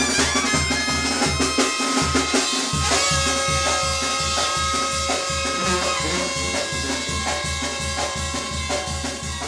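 Live brass band playing upbeat dance music: trumpets, a sousaphone and a drum kit, with the bass pulsing about two to three times a second. The bass drops out briefly around two seconds in.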